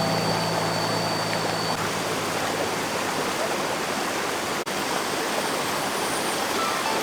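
Small stream running: a steady rush of flowing water, with a momentary dropout about two-thirds of the way through.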